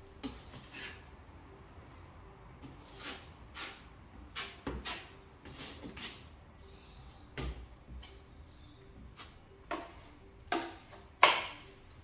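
Metal taping knife scraping wet plaster onto drywall and off a plaster hawk: a series of short scraping strokes, the loudest near the end.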